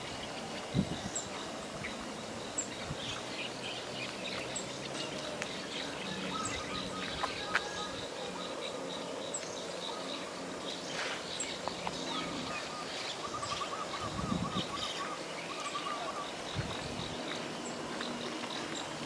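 Rural outdoor ambience of birds and insects: a short high bird chirp repeats about once a second over a steady high insect drone, with a rapid wavering bird call about two-thirds of the way through. A couple of brief knocks stand out early on and near the middle.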